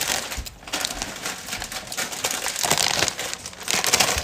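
A foil-lined plastic snack bag crinkling as it is handled, with popcorn being chewed.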